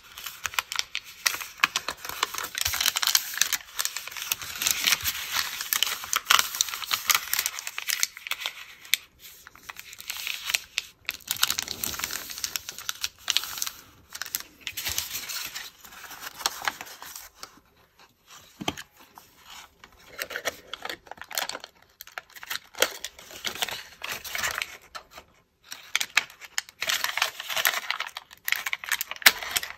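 Stiff, glued tissue paper crinkling and crackling as it is folded and pressed flat by hand. The crackling is busiest in the first half, thins out in the middle, and picks up again near the end.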